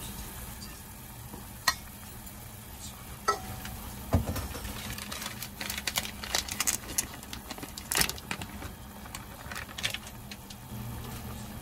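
Kitchen handling at a pot of simmering tomato broth: a couple of sharp clicks, a low knock about four seconds in, then a run of crackles and light taps as a block of dried rice noodles goes into the pot, over a steady low hum.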